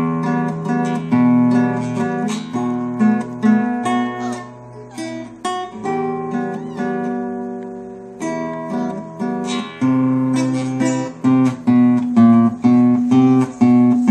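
Background acoustic guitar music: plucked and strummed notes in a steady rhythm, softer in the middle and fuller again about ten seconds in.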